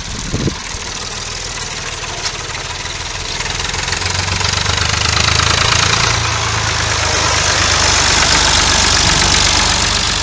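Leyland 245 tractor's diesel engine running steadily as the tractor drives up, growing louder from about four seconds in as it draws near. A short thump comes just under half a second in.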